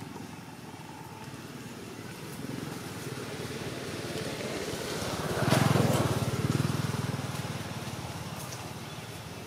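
The engine of a passing motor vehicle. It grows louder to a peak a little past the middle, then fades away.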